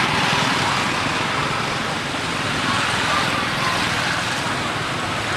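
Steady outdoor ambient noise: an even rushing hiss with no distinct events standing out.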